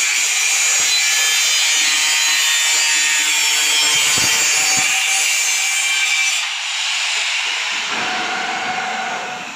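Handheld angle grinder with an abrasive disc cutting through a roll-formed steel shutter strip, giving a steady high-pitched grinding screech. The cutting sound breaks off about six and a half seconds in, leaving a fainter whirr.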